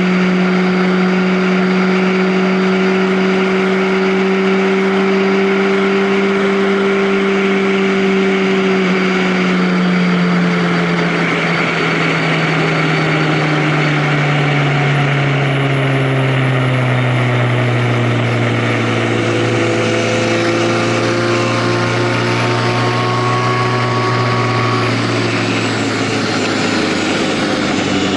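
A vehicle engine running at a steady note that falls gradually from about ten seconds in as the vehicle slows, then holds low, under a steady rush of noise.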